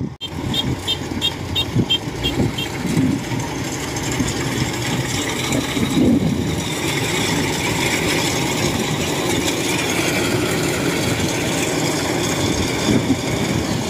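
Tracked rice combine harvester's diesel engine running steadily as the machine crawls down into the paddy. A quick run of short, high beeps sounds over it in the first couple of seconds.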